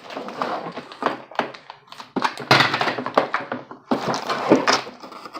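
Plastic parts of a Play-Doh ice cream maker toy and its packaging being handled while the machine is put together: a busy run of knocks, clicks and rustling, louder in the second half.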